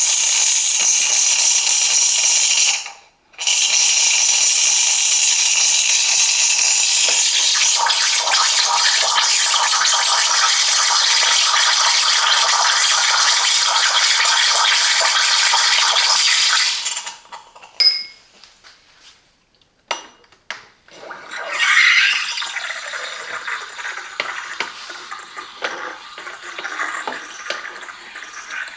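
Steam wand of a BEEM espresso machine hissing steadily, run with no milk. The hiss stops for a moment about three seconds in, then shuts off a little past halfway with a click. Fainter, uneven sounds follow.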